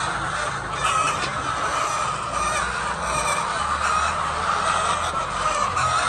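A large flock of chickens in a shed, many clucking and calling at once in a continuous overlapping chatter.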